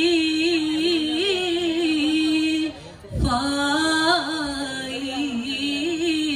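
Duffmuttu song: an amplified singing voice holds a long, ornamented melodic line. About three seconds in the line breaks briefly with a single low thump, then the singing picks up again.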